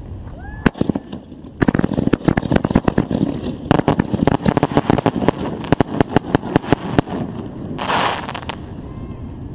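Consumer fireworks going off: a few sharp cracks, then a dense, rapid run of pops and bangs for about five seconds, followed by a short hiss near the end.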